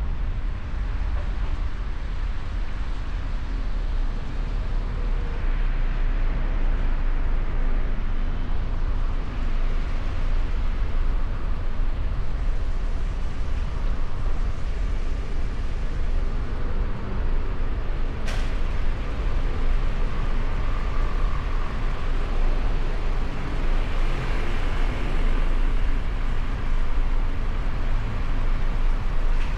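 Steady road and traffic noise from a moving vehicle, with a deep rumble throughout and one sharp click about eighteen seconds in.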